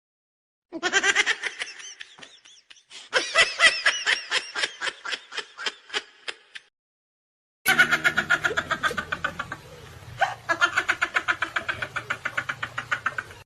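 Recorded laughter sound effects: two laughs in a row, each a long string of rapid ha-ha pulses, separated by about a second of silence about seven seconds in.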